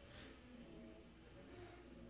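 Near silence inside a Tokyo Metro 10000 series train car: a faint low hum, with a brief soft hiss just after the start.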